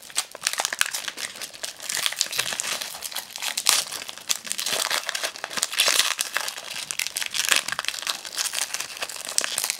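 Foil wrapper of a Pokémon booster pack crinkling and tearing as fingers peel it open by hand, a continuous crackly rustle full of small clicks.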